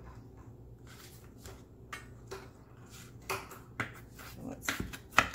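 Chef's knife cutting peeled cucumber into chunks on a bamboo cutting board: about half a dozen separate knife taps against the board, irregularly spaced, starting about two seconds in, with the loudest near the end.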